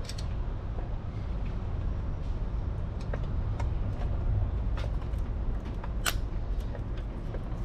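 Scattered light clicks and taps of small hand tools and a feeler gauge on the motorcycle's valve gear during a valve-clearance adjustment, over a steady low background hum. The sharpest click comes about six seconds in.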